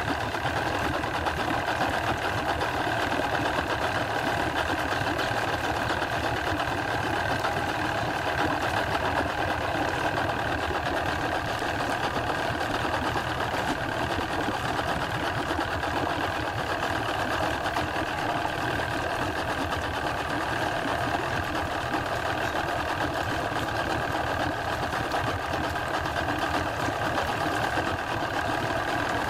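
Outboard motor on a small fishing boat idling steadily.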